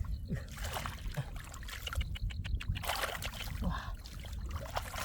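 Shallow floodwater splashing and trickling. About two seconds in there is a short, quick run of clicks.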